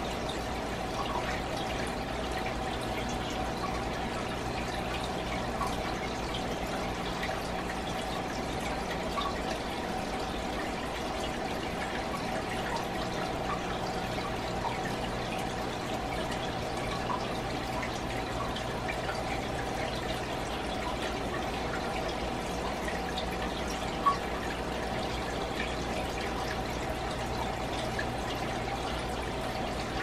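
Fish aquarium water trickling steadily, with scattered small drip-like plinks over a low steady hum. A single sharp click comes about 24 seconds in.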